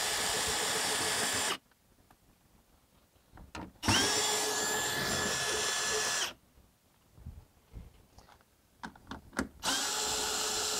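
Cordless drill spinning out 10 mm bolts, running three times for about two seconds each with a steady, even whine: once stopping about a second and a half in, once in the middle, and once starting near the end. Faint clicks of handling between the runs.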